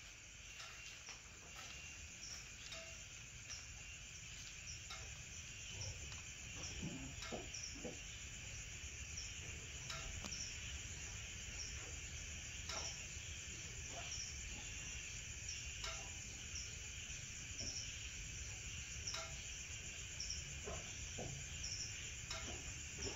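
Faint night insects: short high chirps repeating about once a second over a steady high hum, with a few soft knocks from handling the phone.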